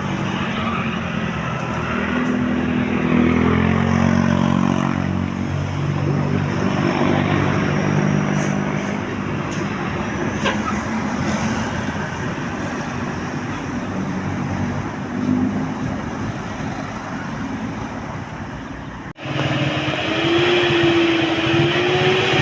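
A bus's multi-note telolet (Basuri) air horn playing a short tune of stepped notes over street noise. About 19 seconds in, the sound cuts abruptly to another horn or engine with a slowly rising tone.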